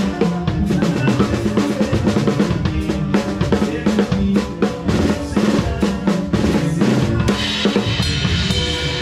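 Live drum kit played with sticks: rapid snare and bass drum hits, with a cymbal ringing out over the last couple of seconds.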